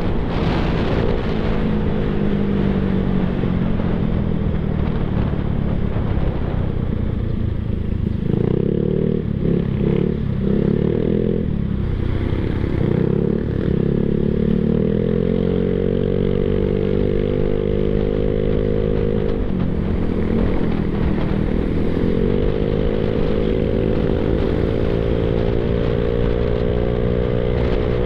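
Yamaha Mio Sporty scooter's single-cylinder four-stroke engine running through an Apido aftermarket exhaust pipe while being ridden. The engine note falls and rises several times with the throttle, climbing steadily a little past two-thirds of the way through.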